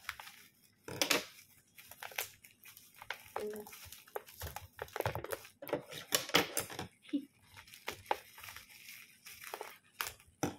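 Plastic wrapping crinkling and rustling in the hands, in short irregular scrunches and crackles.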